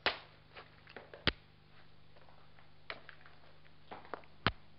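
A soft limestone hammerstone striking the edge of an obsidian biface in direct freehand percussion flaking: sharp knocks, one at the start, a strong one a little past one second in and another near the end, with lighter ticks between.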